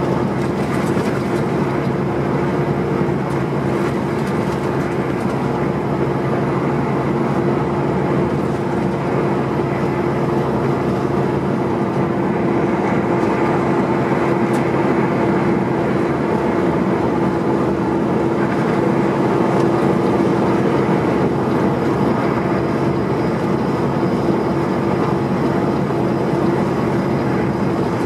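Semi-truck cruising at highway speed, heard inside the cab: a steady diesel engine drone with a constant hum, mixed with tyre and road noise.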